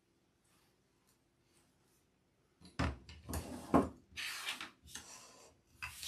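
A wooden ribbon-measuring board scraping and rubbing as it is slid and repositioned by hand across a cutting mat: a string of short scrapes beginning about halfway in, after a near-silent start.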